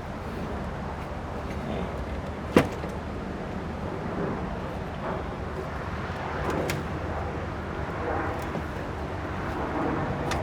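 Hand tools working bolts loose on a Craftsman push mower, with scattered clinks and a sharp metallic click about two and a half seconds in and a lighter one later, over a steady low hum.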